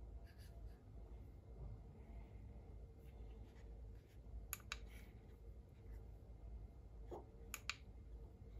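Faint clicks of a Milwaukee laser level's mode button being pressed, two about halfway through and a quick pair near the end, over a faint low rumble.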